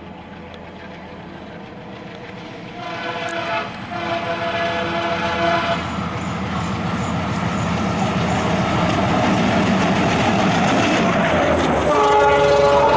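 WDM3A ALCO diesel locomotive hauling an express through a station at speed: its horn sounds a short blast then a longer one about three seconds in. The engine and wheels then grow steadily louder as the train approaches and passes, with coaches rattling over the rail joints near the end.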